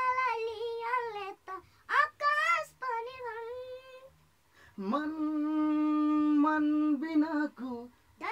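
A boy singing solo without accompaniment, in wavering, ornamented phrases. After a short pause about four seconds in, he holds one long lower note before breaking into shorter phrases again.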